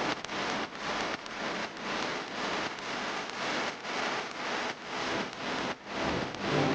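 Bottle gourd halwa sizzling in a pan while being stirred, a steady hiss with a stroke-like rise and dip about twice a second.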